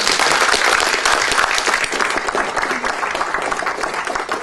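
Audience applauding: many hands clapping steadily, beginning to thin out near the end.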